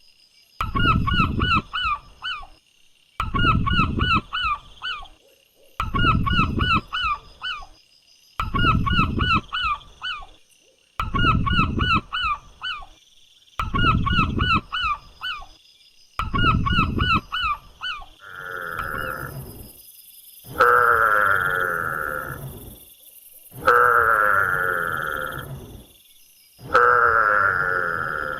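Domestic fowl calling: short runs of rapid calls repeating about every two and a half seconds. About two-thirds of the way through, a different, longer and louder call takes over and repeats about every three seconds.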